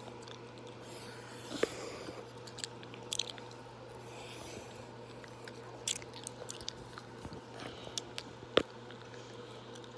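Pencil scratching on a paper notebook page in irregular strokes, with scattered small clicks and taps; the sharpest click comes near the end.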